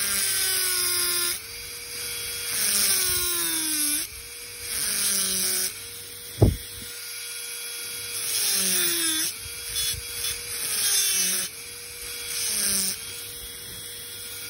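Dental handpiece driving a fissure bur into a plastic model molar to cut depth grooves. Its whine drops in pitch each time the bur bites in and recovers when it is lifted, about six times, with a gritty cutting noise during each pass. There is one short sharp blip about halfway through.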